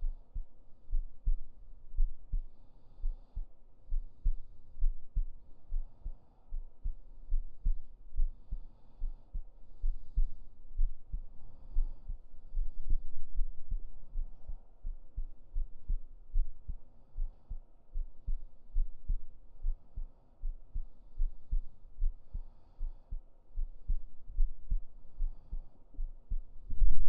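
A person's heartbeat heard close up: low, muffled thumps in a steady rhythm, a little over one beat a second.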